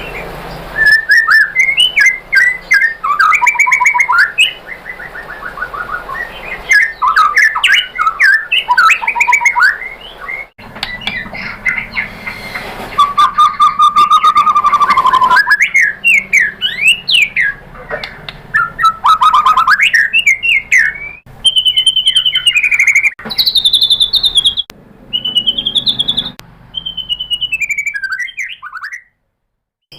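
White-rumped shama singing: a run of varied, fast phrases of trills, chatters and clear gliding whistles, broken by short pauses, and falling silent briefly near the end.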